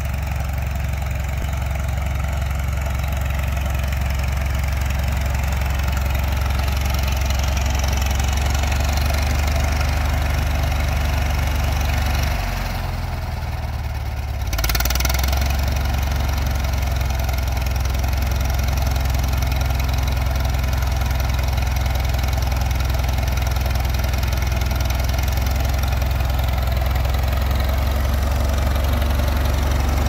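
Farmall Super M tractor's four-cylinder engine running steadily. The engine note drops and quietens for a couple of seconds about halfway through, then comes back stronger.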